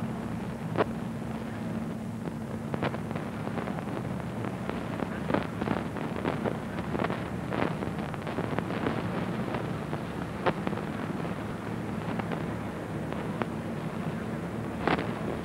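Outdoor ambience with wind noise on a camcorder microphone: a steady rushing hiss with a faint low hum, broken by scattered sharp clicks and crackles.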